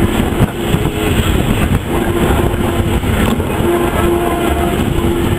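Wooden-bodied railway wagon rolling slowly along the track: a low rumble with irregular clatter and knocks from the wheels and running gear, and a steady pitched tone that comes and goes.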